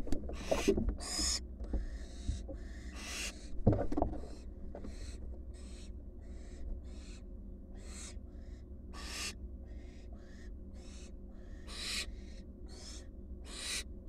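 Barn owl fledglings giving raspy, hissing begging calls over and over, a little more than one a second. Loud knocks and scuffs from owls moving in the wooden nest box come in the first four seconds.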